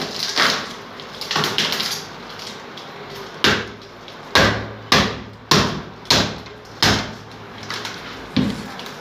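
Scraping and handling noise, then a series of about seven sharp knocks, roughly one every half second to second, from work on a refrigerator's cabinet and parts during an evaporator chamber replacement.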